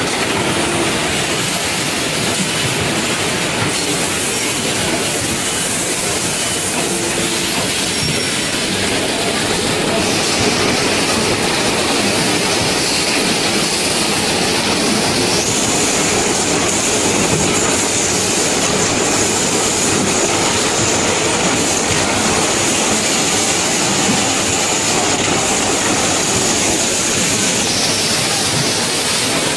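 Automatic stator lacing machine and the surrounding factory machinery running: a loud, steady mechanical din. A high steady whine comes in about halfway through and stops a couple of seconds before the end.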